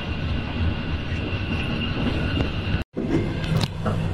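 Steady rumble and rattle of trains in motion, heard from aboard a moving passenger train as a rake of P65 boxcars passes close alongside. The sound drops out for an instant about three seconds in, after which the rumble resumes with a few sharp clicks.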